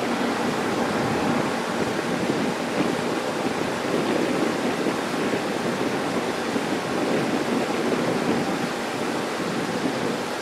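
Steady rushing outdoor noise of a railway station platform, without distinct events, and a faint low hum near the start and the end.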